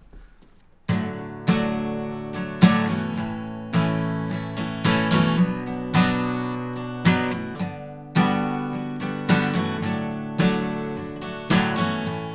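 Acoustic guitar strummed in a slow, steady rhythm, one chord struck about once a second and left to ring out. It begins about a second in, after a brief hush.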